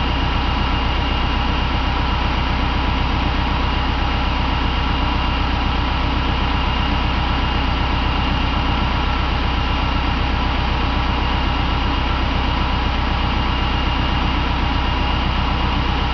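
Isuzu 4HK1T four-cylinder turbodiesel idling steadily while being test-run on a stand, with a steady high whine over the rumble.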